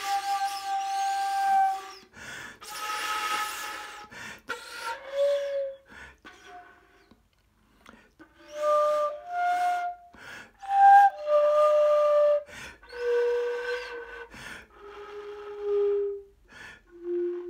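Disassembled silver soprano flute blown end-on across the open top of the tube, giving a string of separate, breathy notes with a lot of air noise between short pauses. The last few notes step down in pitch.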